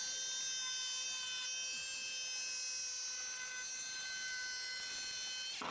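Electric jigsaw running with a steady high whine, cutting plywood. It cuts off abruptly near the end.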